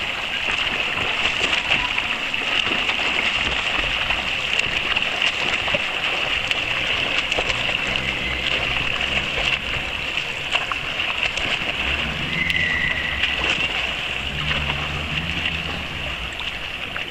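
Swimmers doing front crawl, arms and kicking feet splashing and churning the pool water in a steady, continuous wash of splashing.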